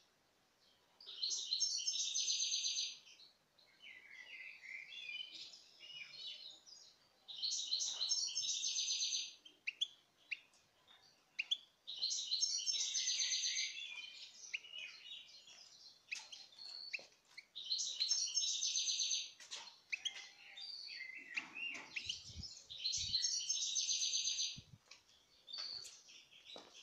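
European goldfinch singing: five loud, rapid, tinkling song phrases about five seconds apart, with quieter twittering between them.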